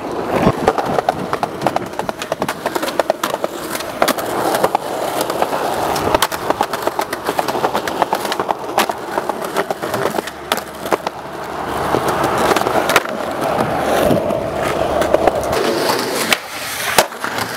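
Skateboard wheels rolling over pavement and concrete, with repeated sharp clacks and knocks of the board hitting the ground.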